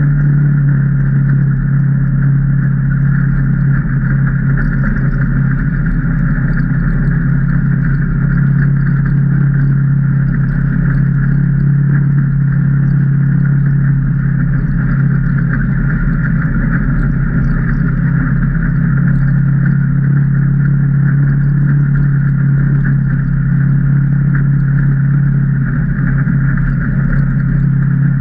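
Can-Am Maverick Trail 800 side-by-side's Rotax V-twin engine running at a nearly constant engine speed while driving along a trail.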